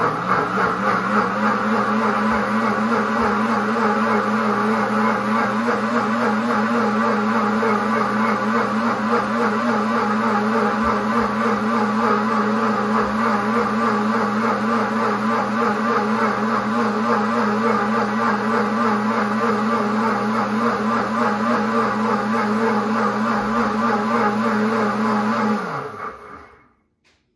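Pampered Chef Deluxe Cooking Blender's motor running steadily at low speed, stirring the jar's contents while the heating cycle brings them up to temperature. Near the end the motor winds down with a falling pitch and stops.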